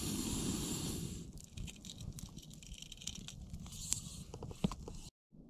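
Breath blown through a metal blow poker onto campfire embers, a rushing hiss that stops about a second in. Then the wood fire crackles and pops.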